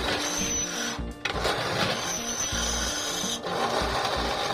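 Background music playing over a bench drill press running, its bit cutting into a steel angle bar.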